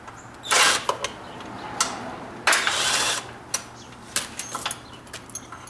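Cordless impact wrench hammering in two short bursts, one about half a second in and a longer one near the middle, as it loosens a rear axle bolt on a lawn tractor transaxle. After the bursts come a few light metallic clinks as the bolt is handled.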